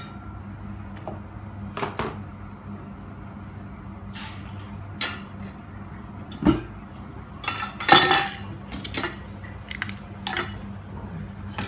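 Kitchen clatter of pots, lids and utensils: scattered clinks and knocks, the loudest a cluster about eight seconds in, over a steady low hum.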